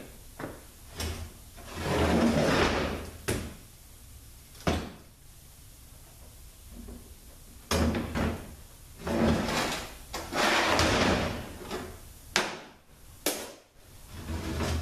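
Metal parts and tools being handled during a transmission teardown: several sliding scrapes about a second long, and a few sharp clacks.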